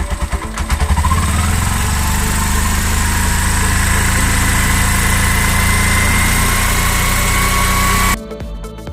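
Bajaj 225 cc CNG auto-rickshaw engine running on a test run just after timing chain replacement and timing setting. About a second in the revs come up a little, and it then runs steadily at a fast idle. It cuts off abruptly near the end.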